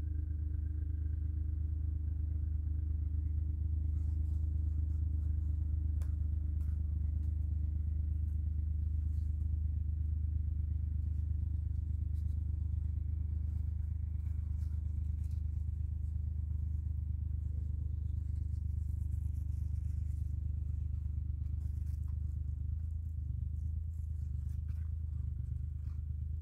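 A steady low machine hum runs throughout.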